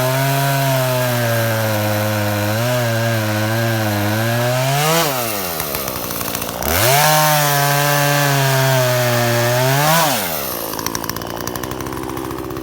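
Two-stroke chainsaw cutting pine wood under load, its engine pitch steady. It races up and drops as the chain comes free about five seconds in, bites into a second cut, races again near the end, then falls back to idle.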